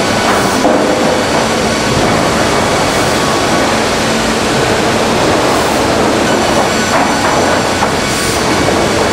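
Loud, steady running noise of a LINCK timber profiling line: motor-driven cutter heads machining squared timber, with wood chips blowing through the machine.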